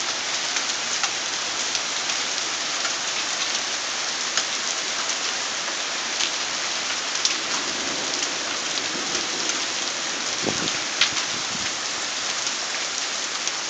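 Hail and rain pelting down in a steady hiss, with many scattered sharp clicks of hailstones striking the roof and the ground.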